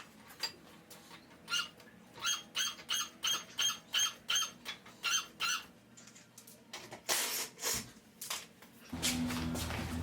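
Car jack being pumped to raise the car, squeaking on each stroke: about ten even squeaks, roughly three a second. A steady hum starts near the end.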